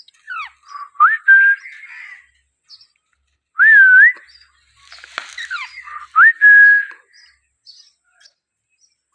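Young Alexandrine parakeet whistling: three short whistled phrases, each a quick rising glide into a held clear note, a few seconds apart, with softer chirps and rustly sounds between them.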